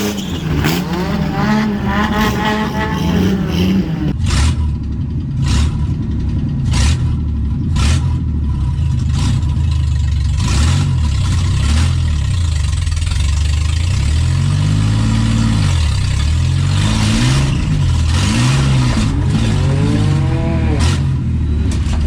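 Ford Mustang's engine revving hard and running under load during a drag run. The pitch climbs and drops several times as it accelerates and shifts, with scattered clunks and rattles.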